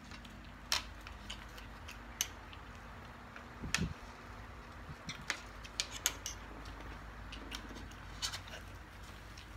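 Close-up eating sounds: scattered sharp clicks and smacks of chewing and of fingers and food against plates, with one louder knock about four seconds in. A low steady hum runs underneath.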